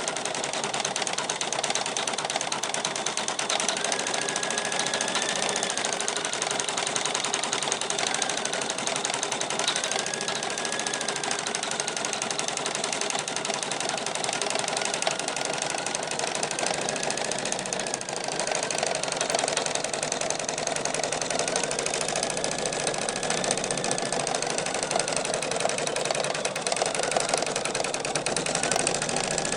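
Computerised embroidery machine stitching steadily: a rapid needle clatter over the motor, with a faint whine that rises and falls every couple of seconds.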